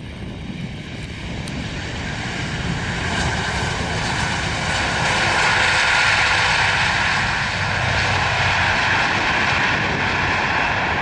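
Airbus A330-200's jet engines building to a loud roar during the landing rollout, swelling over the first few seconds and then holding: reverse thrust after touchdown.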